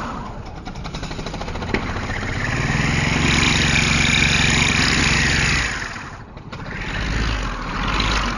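Lawn mower engine running and moving off. It picks up speed and gets louder about two and a half seconds in, holds there, drops back briefly around six seconds, then comes up again near the end.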